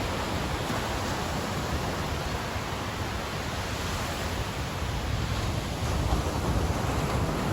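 Ocean surf washing on a beach: a steady rush of waves that swells a little near the end, with some low rumble that may include wind on the microphone.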